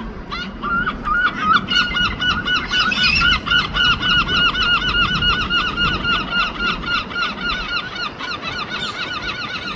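Gulls calling in a rapid, continuous series of short, clipped notes, about five a second, strongest in the first few seconds.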